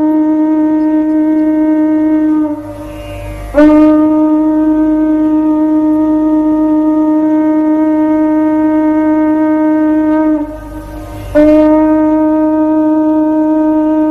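Conch shell (shankha) blown in long, steady held notes: three blasts on one pitch, with a gap of about a second after roughly 2.5 s and again after about 10.5 s, each new blast starting sharply.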